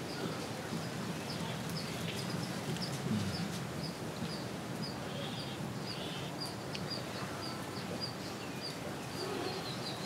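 A bird repeating one short, high chirp over and over, about two to three times a second, over a steady low background hum.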